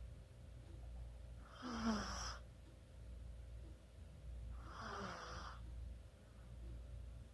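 Chihuahua snoring: two snores about three seconds apart, each with a thin high edge.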